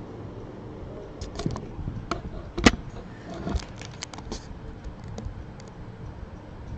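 Handling noise close to the microphone: a scatter of clicks and small rattles with one sharp knock about two and a half seconds in, as the camera and its cable are moved and set back in place, over a steady low hum.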